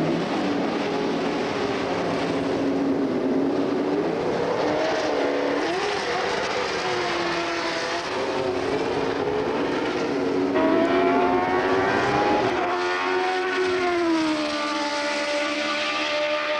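A Jordan 191 Formula One car's Cosworth V8 running and revving, its note rising and falling. A few seconds before the end the pitch drops steadily, then levels off.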